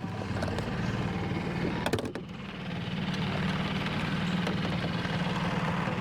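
Jon boat's outboard motor running steadily, getting louder about three seconds in. A couple of sharp knocks come just before two seconds in.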